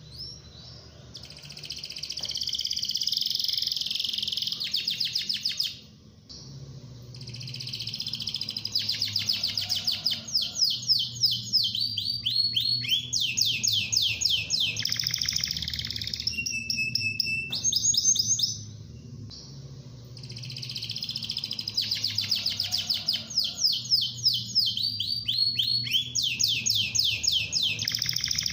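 Domestic canary in full, continuous song: long phrases of rapid trills and fast repeated high notes, broken by short pauses about six seconds in and again near nineteen seconds in.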